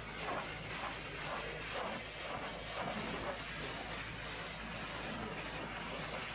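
High-pressure washer lance spraying water onto a truck's steel toolbox and mudguard bracket: a steady hiss with a low hum underneath.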